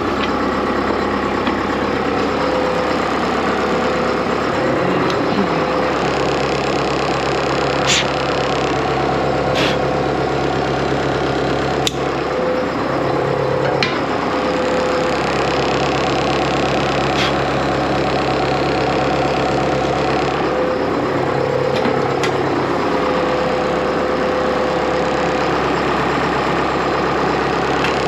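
John Deere 6430 tractor's diesel engine idling steadily, with a low tone in its note that drops out and returns a few times. A handful of short metallic clicks and knocks come through over it.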